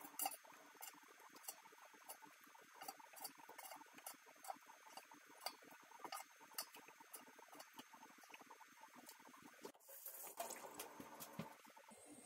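Faint, irregular light clicks and ticks, about one or two a second, as thin slices of raw ginger are laid on the perforated metal basket of an air fryer.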